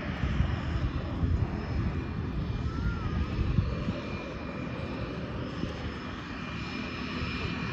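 Floatplane's propeller engine running on the water, a steady drone that is a little louder in the first half.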